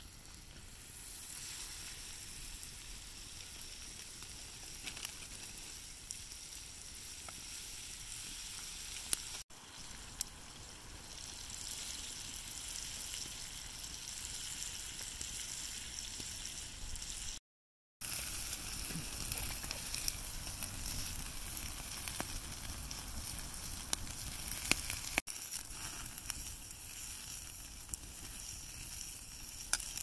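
Steaks searing in a pan of hot fat over a campfire: steady sizzling with a few sharp pops.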